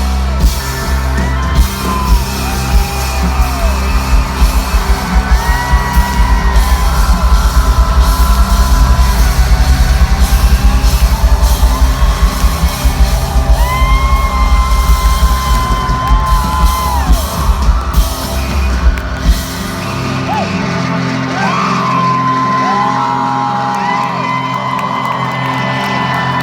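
Live rock band playing loudly, heard from the audience in a large hall: heavy, fast-pounding drums and bass under sustained chords and gliding high tones, with crowd yelling and whooping. About three-quarters of the way through, the drums drop out and the sustained chords ring on.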